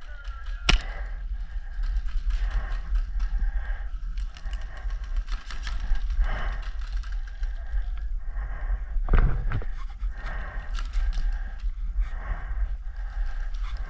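Constant low rumble of wind and movement on a worn camera, with one sharp airsoft pistol shot about a second in, faint ticks and rustles, and a louder knock about nine seconds in.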